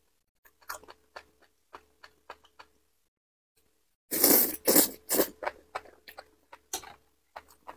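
Close-miked mouth sounds of eating enoki mushrooms in sauce: soft wet chewing clicks, then about four seconds in a loud slurp of the mushroom strands in a few quick pulls lasting about a second, followed by more chewing.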